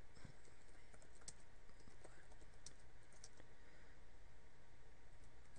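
Computer keyboard being typed on: faint, irregular keystroke clicks as a short phrase is entered.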